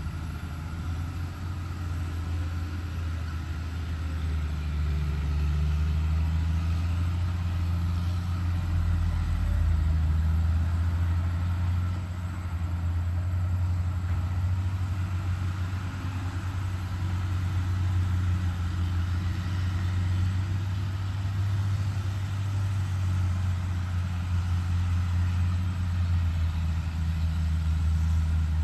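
Hyundai HX210HD hydraulic excavator's diesel engine running steadily while working, its low drone swelling and easing slightly as the load changes.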